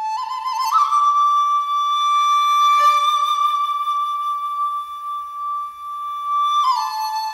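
Background music: a solo flute steps up into one long held note and drops back to a lower note near the end.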